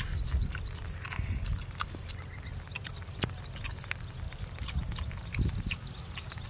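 Two people chewing goat meat off the bone with their mouths open: scattered wet smacks and clicks of lips and teeth, over a low rumble.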